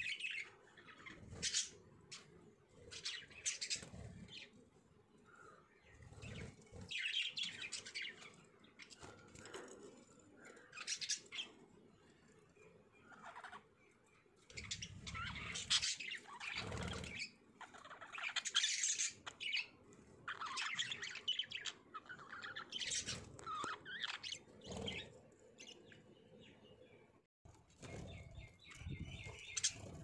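Budgerigars chirping and chattering in bursts every second or two, with occasional soft low thuds among the calls.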